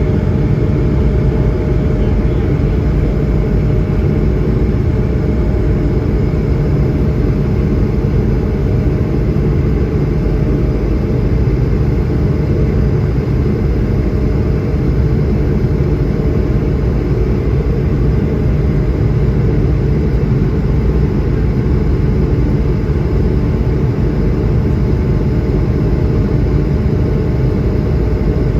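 Steady drone of an Airbus A220-100's Pratt & Whitney PW1500G geared turbofan engines and rushing air, heard from inside the passenger cabin, with a faint constant whine over it.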